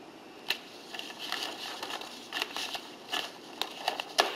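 Sheets of paper being handled and shuffled: crinkling and rustling with several sharp clicks, starting about half a second in.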